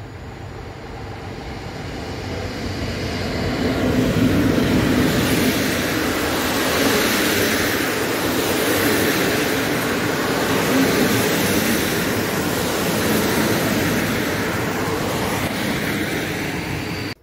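A PKP Intercity EP07 electric locomotive and its passenger coaches pass along the platform. The rolling noise builds over the first few seconds as the locomotive comes level, stays steady while the coaches go by, then cuts off abruptly.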